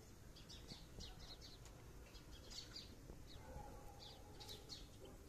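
Faint chirping of small birds: many short, high notes that fall in pitch, repeated irregularly over a low steady background rumble.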